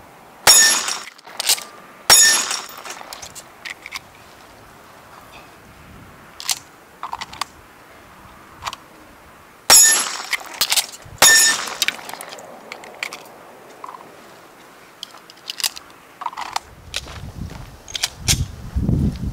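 Semi-automatic pistol firing single shots in a one-round-per-magazine reload drill: four sharp shots in two pairs, the shots in each pair about a second and a half apart and the pairs about seven seconds apart. Small clicks and knocks of magazine changes and pistol handling come between the shots, and a low rumble builds near the end.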